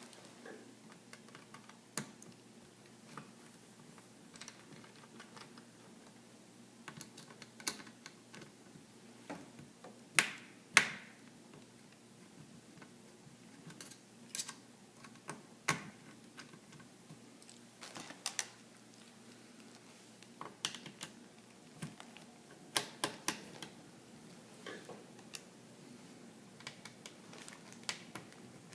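Small Phillips screwdriver and tiny screws clicking and tapping at irregular intervals as the screws holding a laptop's LCD panel in the lid are removed. Two louder sharp clicks come about ten seconds in.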